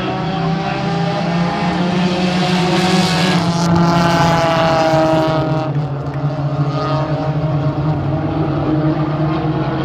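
A pack of front-wheel-drive stock cars racing, their engines running together in a steady drone. One car's engine grows louder and rises a little in pitch as it passes close, loudest about four to five seconds in, then drops back into the pack.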